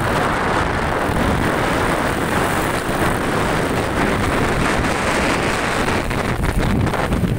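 Steady wind rushing over the microphone while riding a motorcycle, mixed with the bike's running and road noise.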